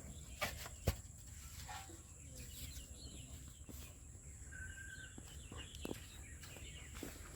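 Faint outdoor ambience with a few brief bird chirps and two sharp knocks in the first second.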